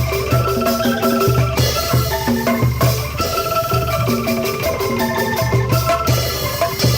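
Angklung ensemble playing a rhythmic tune: shaken bamboo tubes sounding rapidly repeated notes over a low, pulsing bass pattern.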